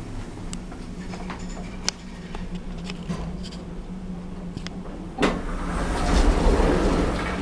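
Older MP passenger lift running: a steady low hum with small clicks, then a thump about five seconds in and a louder rush of noise that swells and eases.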